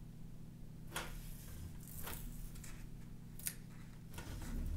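Double-sided window-kit tape being pressed and smoothed onto a wooden window frame by hand, giving a few short crackles and soft rustles of the tape, over a steady low hum.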